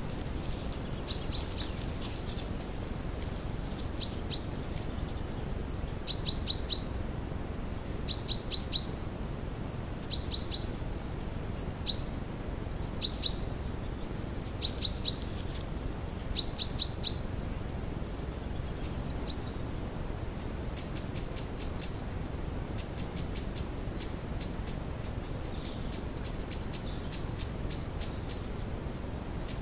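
A small songbird calling over and over, each short phrase a high downward slurred note followed by a few quick clicky notes, about one phrase every second or so. About two-thirds of the way in, the calls stop and a steady, rapid, high-pitched pulsing trill takes over.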